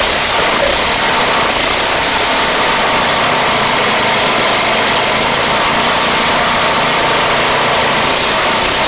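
Husqvarna ST224 snowblower's small single-cylinder engine running steadily, loud and even, with its carburetor freshly cleaned; it runs better but is said to still surge at top end, the idle jet not yet drilled out.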